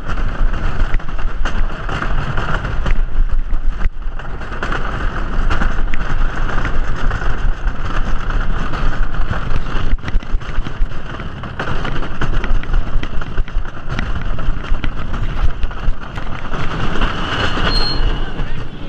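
Wooden roller coaster train running along its track, heard from onboard: a continuous loud rumble and clatter of wheels on the wooden track, with many sharp clicks. A brief high squeal comes near the end.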